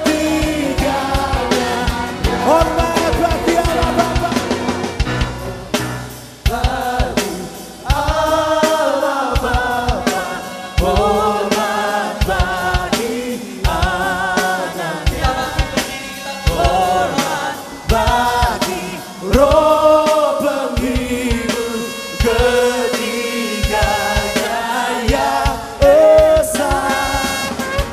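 Live worship song: a lead singer and choir singing over a band with drums and guitar. A long shofar is blown over the music, with long held notes in the later part.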